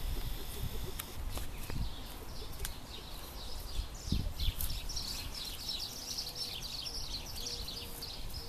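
Small birds chirping and twittering, a dense run of short quick notes that thickens in the second half, over a steady low rumbling noise.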